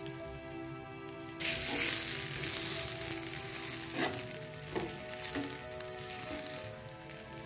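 Dosa batter frying on a miniature iron tawa, with oil poured onto it. A sudden burst of sizzling starts about a second and a half in, with a couple of louder spits, and eases off near the end. Background music plays throughout.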